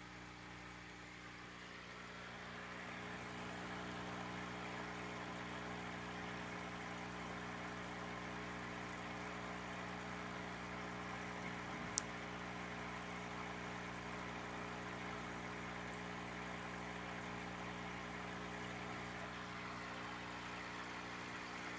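Aquarium pump humming steadily under a hiss of bubbling water, which grows louder about two seconds in. One sharp click about halfway through.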